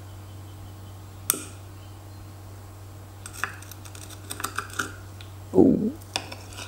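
Metal teaspoon cracking the hard caramelized sugar crust of a crème brûlée: a single sharp tap about a second in, then a run of small crisp cracks and crunches as the spoon breaks through the caramel.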